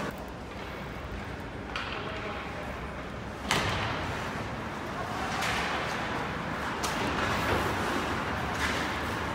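Ice hockey game heard from the stands of a rink: scattered sharp knocks of sticks, puck and boards, the loudest about three and a half seconds in, over a steady murmur of spectators talking.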